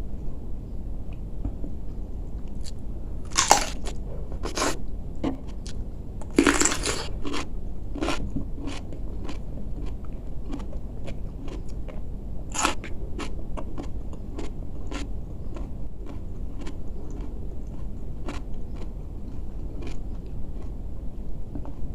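Crisp bites into a raw cucumber, loudest about three and a half and six and a half seconds in, followed by close-up chewing with small wet crunches about twice a second.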